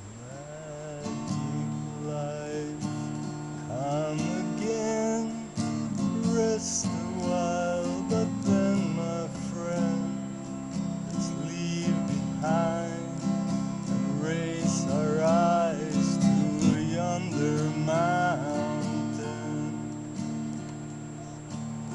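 Acoustic guitar strummed in a steady rhythm, with a wavering melody that glides in pitch over the chords. The music swells up about a second in.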